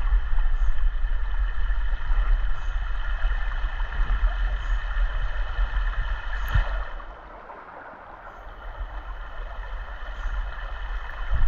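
Shallow rocky creek running over stones, with a low rumble on the microphone that eases off for a couple of seconds after about seven seconds. A single sharp click about six and a half seconds in.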